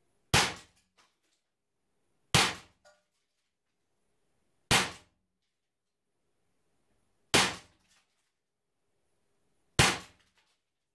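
Umarex Beretta 84 FS CO2 4.5 mm BB pistol firing five shots, about two and a half seconds apart. Each shot is a sharp crack that dies away quickly, and a faint tick follows the first two.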